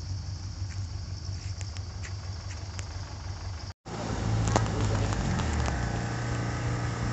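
Truck engine idling with a steady pulsing low rumble. After a brief cut about four seconds in, a louder engine runs steadily, with a few sharp clicks.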